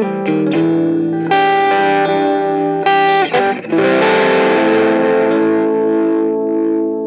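Fender Stratocaster electric guitar through a Fender Blues Jr amp, playing a quick run of single notes and chords. About four seconds in, a chord is strummed and left to ring out.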